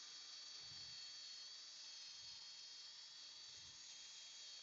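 Near silence: a faint steady hiss, with three faint low thumps spaced about a second and a half apart.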